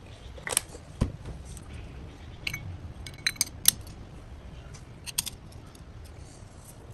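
Metal clutch parts of a Hinson clutch basket and hub clinking and knocking together as they are handled. There are single sharp clicks about half a second and a second in, a quick cluster of clinks around three to four seconds, and another couple near five seconds.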